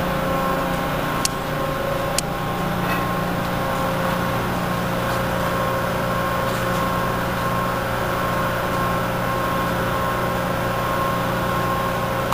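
Forklift engine running steadily. Two sharp clicks come about one and two seconds in.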